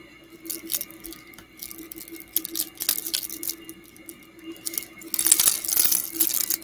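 Plastic bags of Lego pieces being torn open and searched: scattered crinkles and clicks, with a denser rustle and clatter of small plastic bricks about five seconds in.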